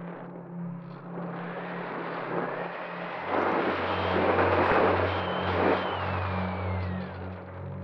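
Brushless outrunner motor (Turnigy Aerodrive SK3 1500kv) and pusher propeller of a Bixler 3 RC plane in flight, heard from the onboard camera together with wind rushing past. The motor's whine glides up and down, and the rush grows louder about three seconds in.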